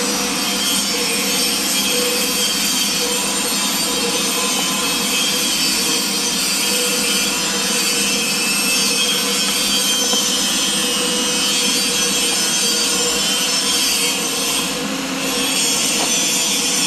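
Motor-driven siren with a brushed electric motor running at a steady speed. It gives a loud, even whirring noise with a faint steady tone underneath and does not rise or fall in pitch.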